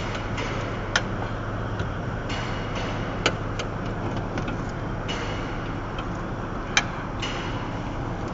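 Machinery running steadily with a low hum, broken by three sharp clicks about a second, three seconds and seven seconds in.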